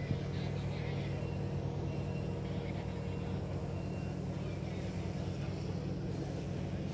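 Steady low drone of a moored fishing vessel's diesel machinery running, with faint voices in about the first second.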